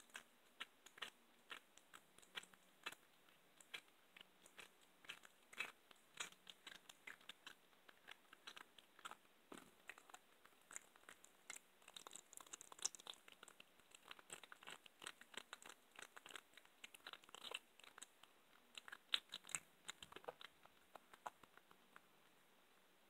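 Domestic cat chewing a raw chicken wing, bone crunching between its teeth in a fast, irregular run of faint crunches that stops near the end.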